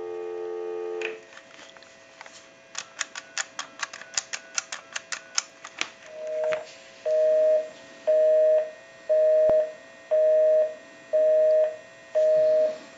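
Telephone line tones on a Western Electric Trimline phone: steady dial tone that stops about a second in. Then a quick run of touch-tone keypad beeps as a number is keyed. Then a busy signal, a two-tone buzz pulsing on and off about once a second, because the number called is the line's own.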